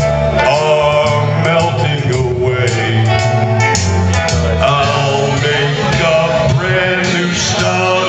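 Live music: a man singing with guitar accompaniment.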